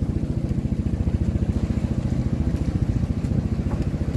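A fishing boat's engine running steadily, a fast, even, low thudding.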